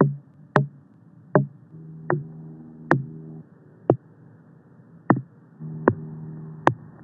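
Recorded knocks on whole watermelons, one sharp knock about every three-quarters of a second, passing from a melon rated among the best in a tasting to melons rated mushy and grainy. A steady airplane drone sits under some of the knocks.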